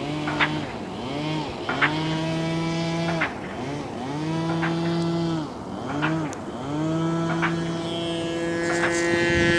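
Electric motor and propeller of a large foam RC Cessna whining in flight. Its pitch swings up and down again and again as the throttle is worked, with a few longer steady stretches.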